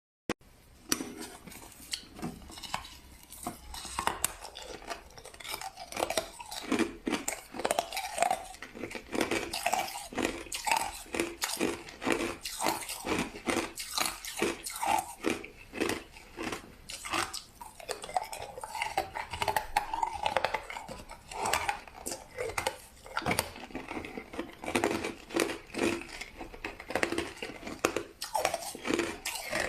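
Crushed ice being bitten and chewed close to the microphone: a rapid, irregular run of crisp crunches that goes on without a break.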